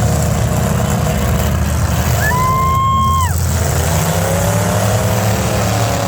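Demolition derby cars' engines running loud and revving in the arena. About two seconds in, a single steady high tone, horn-like, sounds for about a second and then drops away.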